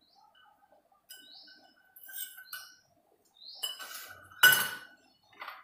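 Steel kitchen utensils clinking, with one loud ringing clink about four and a half seconds in. A bird chirps a few short rising notes in between.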